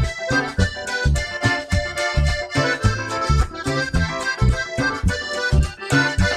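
Live band music: a button accordion plays the melody over bass guitar and a drum kit keeping a steady dance beat.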